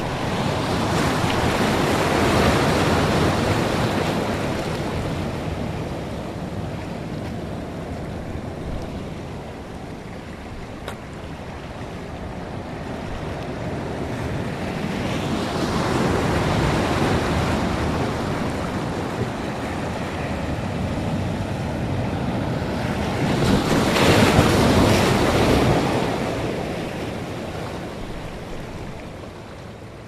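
Ocean surf: waves rushing in and washing back, swelling three times (a few seconds in, around the middle, and loudest near the end) before fading out.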